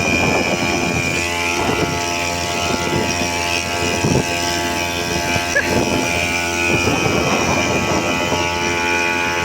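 Brush-cutter engine rigged as the motor of a drum raft boat, running steadily at a constant speed.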